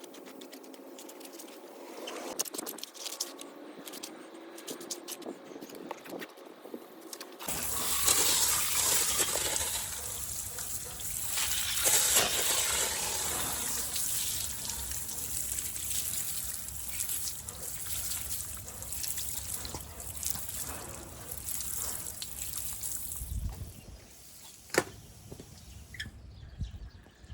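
Water running and splashing: a steady hiss with scattered drips and clicks, growing louder about seven seconds in.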